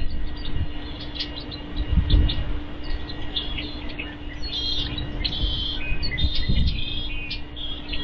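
Wild birds chirping: many short, high calls overlapping, busiest in the second half. Underneath are irregular low rumbles and a faint steady hum.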